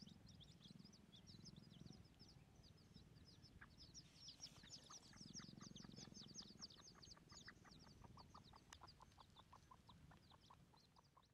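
Faint wild red junglefowl calls: a steady run of short clucks, about three a second, from about halfway through, over a busy chatter of high, quick chirps.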